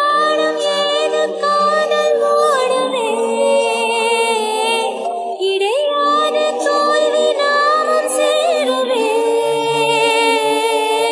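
A Tamil song with sung vocals holding long notes that slide between pitches, over its accompaniment.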